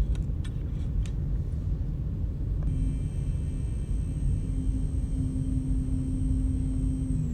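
Resin printer's Z-axis stepper motor driving the build plate during levelling, a steady high whine made of several fixed tones that starts about a third of the way in. Under it runs a low steady rumble, with a few light clicks in the first second.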